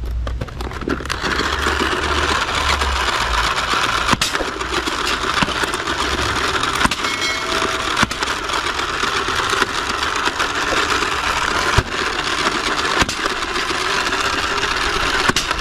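Motorized toy ball blaster running steadily as it fires a stream of foam balls, with scattered sharp clicks.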